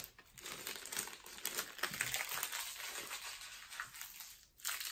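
Peeled-off clear packing tape being crumpled and balled up in the hands: a dense run of small crackles and clicks, with a brief lull near the end.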